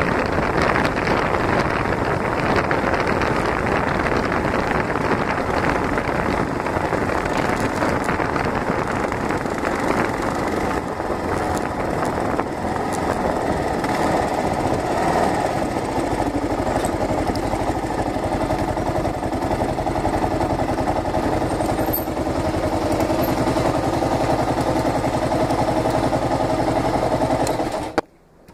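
Kawasaki KLR650 single-cylinder engine running under way, mixed with wind rushing over a phone microphone on the handlebar; a steady drone, with the engine's hum standing out more clearly in the second half. It cuts off abruptly near the end.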